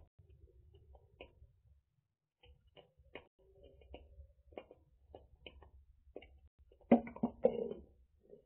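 Small grass-and-rubbish fire crackling with scattered faint pops and ticks, then a louder cluster of sharp knocks and thuds about seven seconds in.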